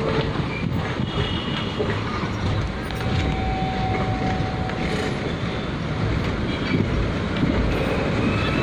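Passenger train running, heard from inside the carriage at an open barred window: a steady rumble of wheels on the rails. A faint thin tone is held for about two seconds in the middle.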